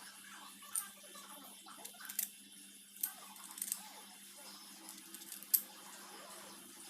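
A handful of short, sharp clicks and taps, about five spread irregularly, the loudest one about five and a half seconds in, over a faint steady hum.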